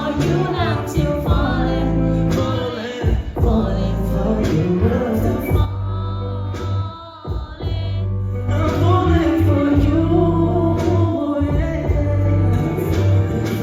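A pop song performed live through a concert sound system: a singing voice with heavy bass and accompaniment. The music drops back briefly about six seconds in, then comes back in full.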